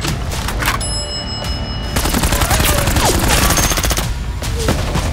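Rapid automatic blaster fire: a few single shots, then a sustained burst about two seconds in that lasts around two seconds, over background music.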